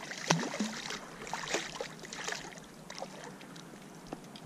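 Shallow river water splashing and lapping as a released walleye kicks away from the bank: a few sharp splashes in the first two seconds, then quieter lapping.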